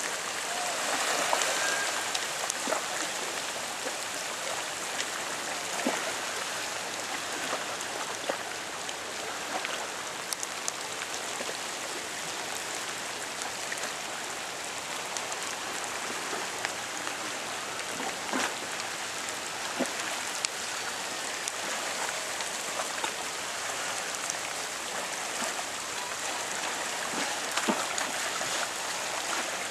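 Steady hiss of rain falling, dotted with scattered ticks of individual drops.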